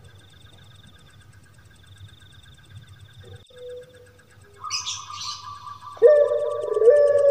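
Puter pelung dove calling: a few high chirps about four and a half seconds in, then a loud, long, steady coo starting about six seconds in. A faint pulsing background runs beneath.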